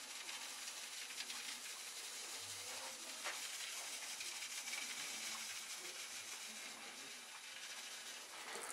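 Fine dirt hissing steadily as it is shaken through an old mesh colander and sprinkles onto the diorama base, with a few faint ticks.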